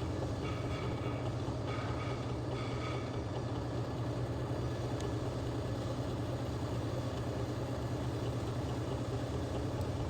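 A machine running steadily with a low hum. A faint, high, broken whine sounds over it during the first three seconds.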